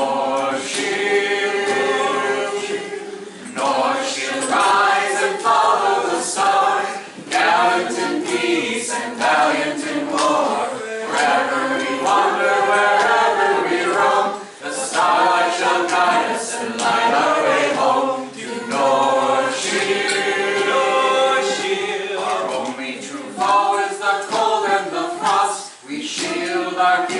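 Unaccompanied singing of a song in phrases, a woman's voice leading with several other voices joining in.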